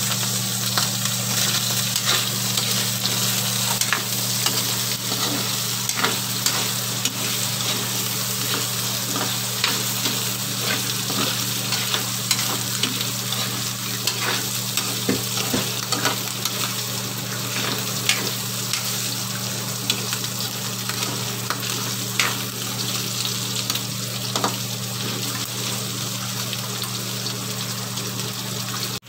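Pork pieces sizzling as they fry in oil in a wok, with scattered pops and a spatula stirring them now and then. A steady low hum runs underneath.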